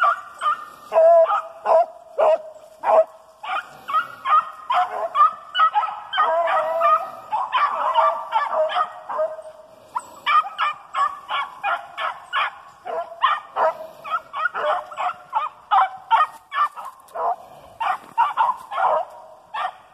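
A pack of rabbit-hunting hounds barking and baying over one another in a fast, unbroken chorus as they run a rabbit's track. The chorus breaks off just before the end.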